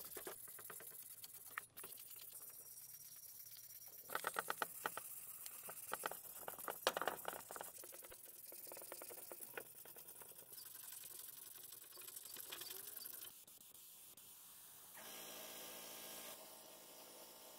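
Sandpaper rubbed by hand over aluminium motorcycle wheel parts: quick rasping strokes, loudest in bursts a few seconds in. Near the end a steady hum begins.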